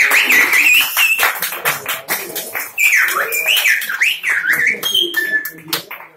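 Silbo Gomero, the whistled language of La Gomera: a person whistling speech as a loud tone that glides up and down. It comes in two phrases, the first ending about a second in, the second starting about three seconds in and closing on short held notes.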